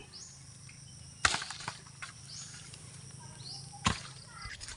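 Faint countryside ambience with a few short, high, rising chirps, and two sharp knocks, one about a second in and another near four seconds.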